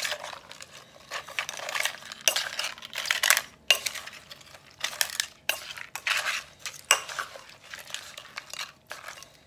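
Spoon scraping and clinking against the inside of a clay mortar as Thai green papaya salad with crab is tossed and stirred to mix in the dressing, in uneven strokes about one or two a second.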